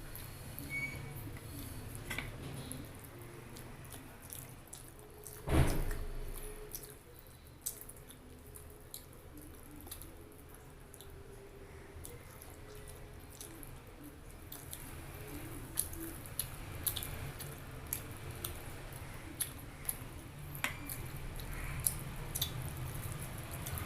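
Close chewing of food with many small wet mouth clicks and smacks. A single loud thump comes about five and a half seconds in.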